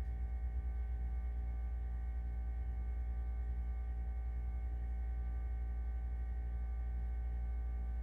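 Steady low hum with a few faint, even high tones above it, wavering slightly in the first second and then holding steady. This is the constant background hum of an appliance or electrical equipment in the room; the paint pouring itself makes no clear sound.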